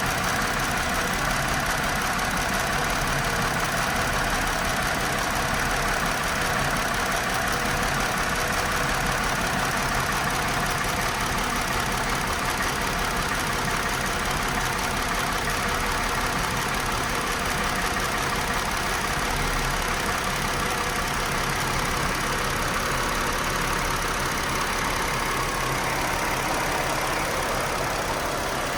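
2018 Chrysler Pacifica's V6 engine running at a rough idle with a multiple-cylinder misfire (code P0300).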